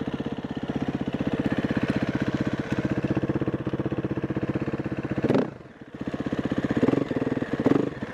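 KTM EXC-F 350 single-cylinder four-stroke enduro engine running at low revs with an even pulsing beat as the bike is ridden. It rises briefly about five seconds in, dips as the throttle closes, then gives two short throttle blips near the end.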